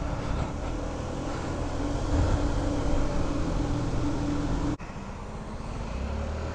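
Honda Ruckus scooter's small four-stroke single-cylinder engine running at a steady cruise, mixed with wind and road noise. The sound dips sharply for a moment about two-thirds of the way through, and a lower steady hum takes over near the end.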